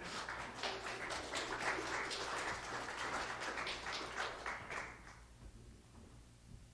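Congregation applauding with many hands clapping at once, fading out about five seconds in.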